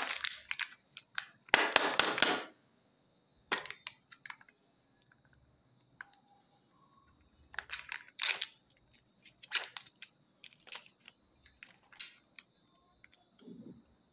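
Foil wrapper and foil lid of a Kinder Joy egg crackling and tearing as they are peeled off the plastic egg half, with sharp crackles and clicks of the plastic shell. The loudest is a long tearing crackle about two seconds in, followed by shorter scattered crackles.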